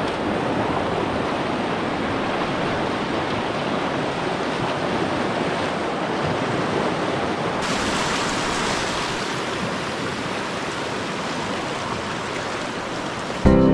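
Steady rush of river water running over rapids. It turns brighter and hissier about eight seconds in.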